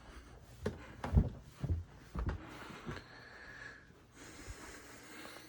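Footsteps climbing stairs: a run of short thumps about two a second, then fainter movement noise.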